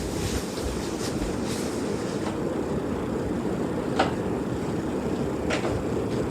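Ceiling fan running with a steady low whir, with a few light clicks, the clearest about four and five and a half seconds in.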